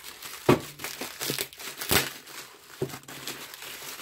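Plastic bubble wrap crinkling and rustling as a wrapped package is handled and unwrapped, with two louder sharp crackles, one about half a second in and one near the middle.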